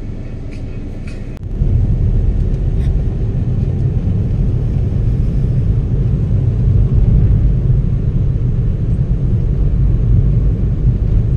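Car driving, heard from inside the cabin: a steady low rumble of engine and tyres that grows louder about a second and a half in as the car pulls away from standstill and picks up speed.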